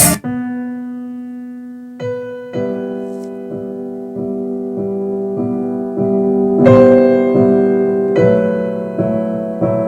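Piano music played through Sven SPS-611S desktop PC speakers and picked up by a camera microphone. A held chord fades out, then an even run of notes starts about two seconds in and grows louder about seven seconds in.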